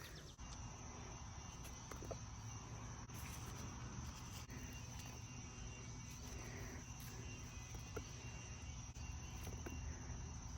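Faint outdoor ambience: insects trilling in a steady high tone, over a low background rumble, with a few small faint clicks.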